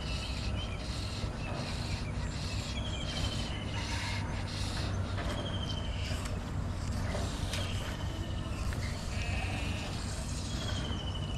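An animal's short, slightly falling call, repeated four times about every two and a half seconds, over a steady low hum.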